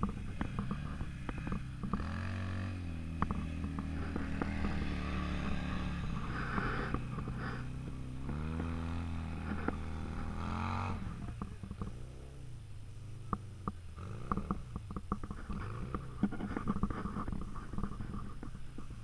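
Off-road vehicle engines, a side-by-side UTV and a quad, revving and easing off as they drive through sand, their pitch rising and falling again and again. About eleven seconds in the engine sound drops quieter and lower, with scattered sharp ticks.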